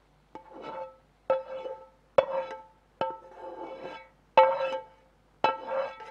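Slotted metal spoon scraping and knocking against a metal pan six times, about once a second. Each stroke leaves the pan ringing briefly at the same pitch.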